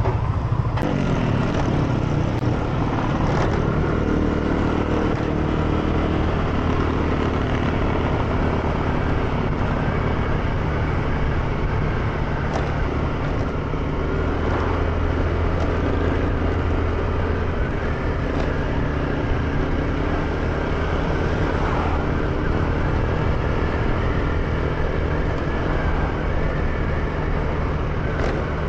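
Motor scooter engine running at a steady, even speed while riding along a road.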